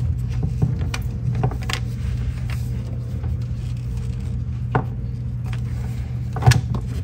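Light plastic clicks and knocks as a white plastic P-trap and its slip nuts are handled and lined up under a sink, a handful of short sharp ticks, the loudest near the end, over a steady low hum.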